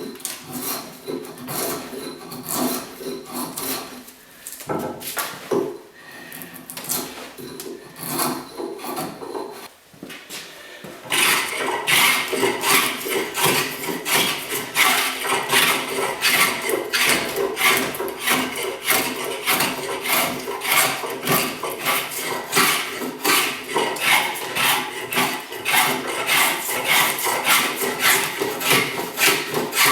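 Small diamond stone rubbed back and forth along an axe edge with lapping solution, honing it in rhythmic scraping strokes. The strokes are soft and irregular at first, then about eleven seconds in become louder and steady at about two a second.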